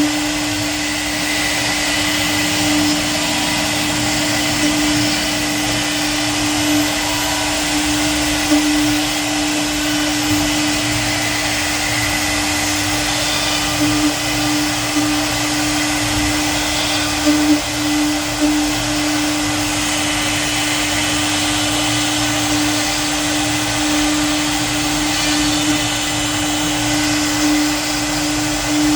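CNC router spindle running steadily while carving wood: a constant whine under the hiss of the cut, with a few brief louder moments about halfway through.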